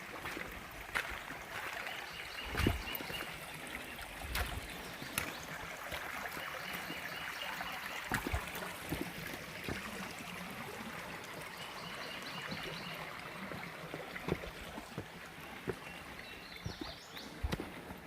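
Creek water running steadily, with irregular knocks and clicks over it throughout.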